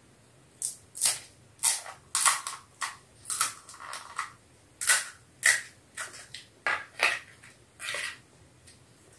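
Crisp, hollow pani puri shells being cracked open with the fingers: a string of sharp, dry crackles, one or two a second.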